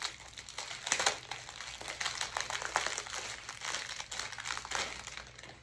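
Thin plastic packaging crinkling and crackling as it is handled and pulled open by hand, with a louder crackle about a second in.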